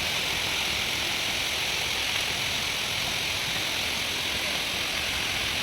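Steady rushing of flowing water, a stream or waterfall.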